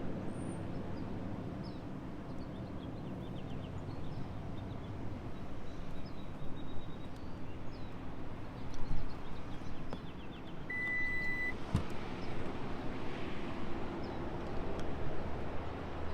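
Steady outdoor background hum with small bird chirps. A single short electronic beep sounds about eleven seconds in, followed by a sharp click.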